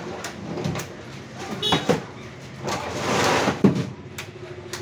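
Whole pomfret being picked out of a crate and tossed one by one into plastic crates, landing as a series of irregular thuds and slaps, with a longer rustle of fish being shuffled by gloved hands about three seconds in.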